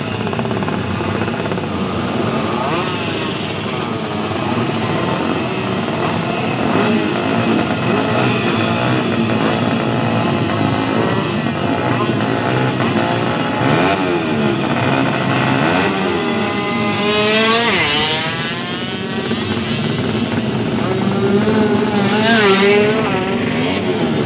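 Several two-stroke motorcycles revving on a drag-race start line, their engines blipping and overlapping. One revs hard in a sharp rising-and-falling sweep about two-thirds of the way through, and another near the end.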